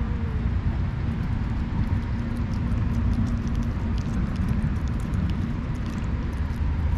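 Steady low outdoor rumble, like traffic noise, with a hum that weakens about halfway and scattered faint clicks. A cat's low, drawn-out yowl trails off in falling pitch at the very start.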